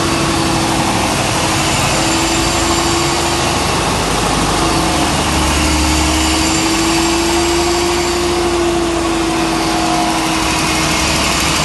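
Large spark-ignited gas engine of a 450 kW biogas generator set running steadily at constant speed, loud and even, with a constant whine over the engine noise.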